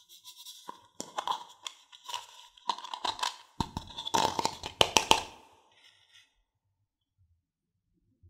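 Plastic toy doll being pulled out of a toy bathtub full of candy-coated chocolates and handled: candies clicking and rattling against the plastic, with plastic rubbing and tapping in the hands, as a flurry of small clicks lasting about four seconds.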